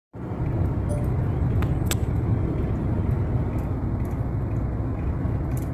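Steady low road and engine rumble heard from inside a car's cabin while driving at highway speed.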